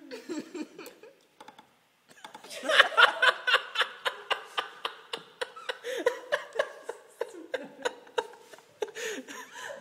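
Hand-held butterfly can opener clamped on a tin can, clicking sharply about three times a second as it is worked, from about two seconds in, mixed with a woman's giggling and laughter.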